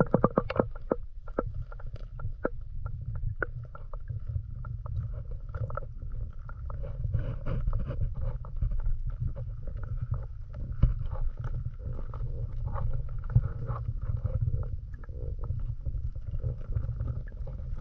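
Rock-pool water heard through a submerged microphone: a steady muffled low rumble with many small clicks and crackles throughout.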